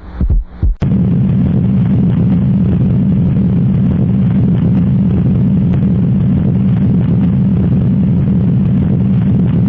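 Recorded heart sounds: rhythmic heartbeat thumps, about three a second, which cut off under a second in and give way to a steady, loud low rumble with no clear beat in it.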